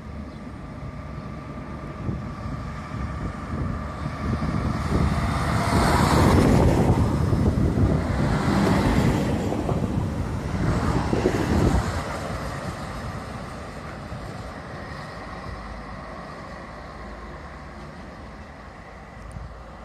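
Bodensee-Oberschwaben-Bahn Stadler Regio-Shuttle RS1 diesel railcar passing close by: diesel engine running and wheels on the rails. It builds up, is loudest for several seconds around the middle, then fades as it draws away.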